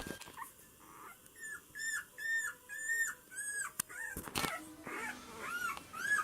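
A dog whining: a run of short, high, wavering cries, about two a second, with a couple of sharp knocks partway through.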